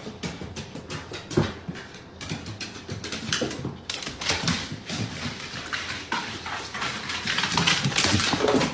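A dog going up wooden stairs, its claws and paws clicking and tapping on the treads in quick, irregular steps.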